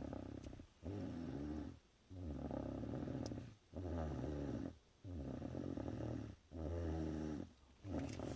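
A person asleep and snoring, a rasping snore about every 1.3 seconds with short pauses between.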